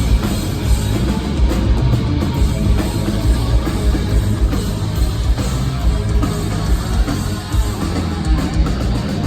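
A rock band playing live at sound check, with distorted electric guitars, bass and drum kit heard through the venue's PA.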